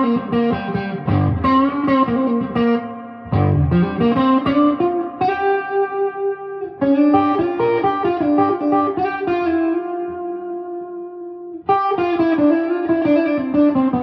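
Electric guitar played through a Princeton Reverb clone valve amp with its spring reverb set at 4. It plays runs of picked notes and chords, and three chords are struck and left to ring out and fade.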